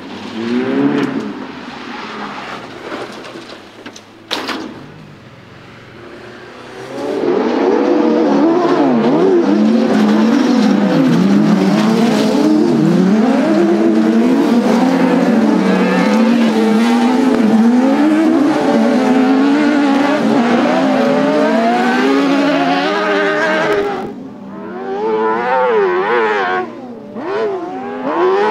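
Autocross racing cars and crosskart buggies at full throttle, their engines revving high and falling back in pitch through gear changes and corners. The first few seconds are quieter, with a car passing and a sharp knock about four seconds in. From about seven seconds on several engines rev at once, dropping briefly a few seconds before the end.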